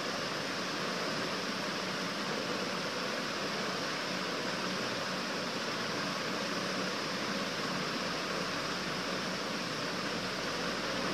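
A steady, even hiss that does not change or break.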